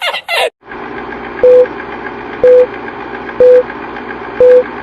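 Electronic beep, a single steady mid-pitched tone about a fifth of a second long, repeating about once a second over a steady background hum, cutting off suddenly.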